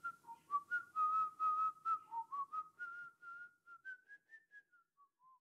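A person whistling a short tune, a run of clear notes that wander up and down, getting quieter over the last couple of seconds and ending on a few falling notes.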